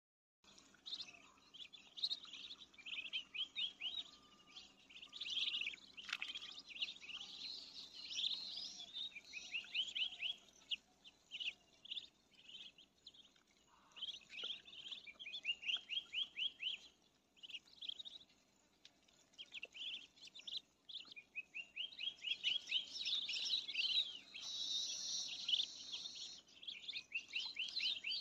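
Muscovy ducklings peeping as they feed on grain: many high, short cheeps in quick runs of several a second, with a few brief lulls.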